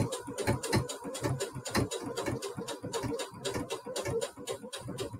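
Singer Heavy Duty 6800C sewing machine running slowly in straight stitch, its needle mechanism ticking steadily at about seven strokes a second.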